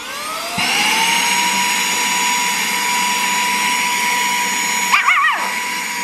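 Saker 3-in-1 cordless mini handheld vacuum switched on: its motor spins up with a rising whine over about a second, then runs at a steady high whine with a rush of suction. About five seconds in, a small dog gives a brief wavering whine over it.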